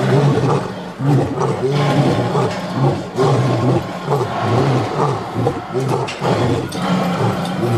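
Male lions roaring: a run of deep, grunting calls repeating about twice a second.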